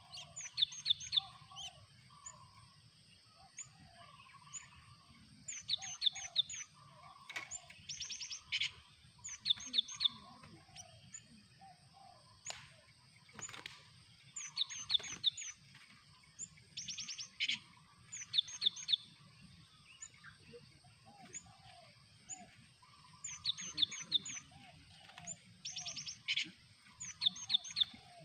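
Cinereous tits (gelatik batu) calling: quick bursts of three or four sharp high notes, repeated every second or two, with softer lower chattering notes in between.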